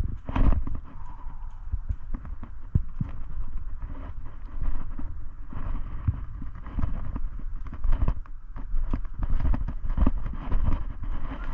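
Irregular footsteps with knocks and rubbing from clothing and gear, over a steady low rumble.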